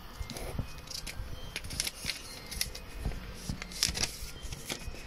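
Paper and a cardboard box being handled: irregular rustling with light clicks and taps.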